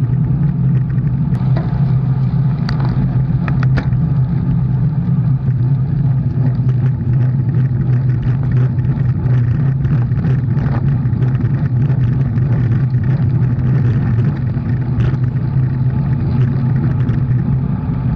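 Motor vehicle engine running at a steady speed, a constant low hum with no revving.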